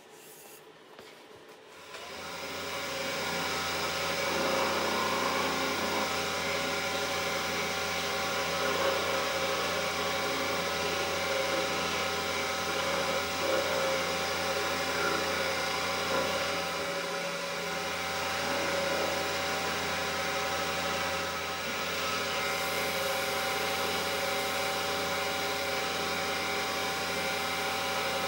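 A wood lathe's motor starting up about two seconds in and then running steadily, with a block of wax and then a cloth rubbed against the spinning turned handle to finish it.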